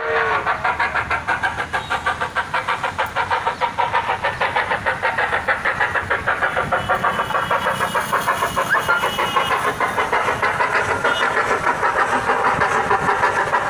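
Dick, Kerr & Co. narrow-gauge locomotive MTR No. 1 running in place on its pedestal, giving a steady rhythmic beat of about five pulses a second.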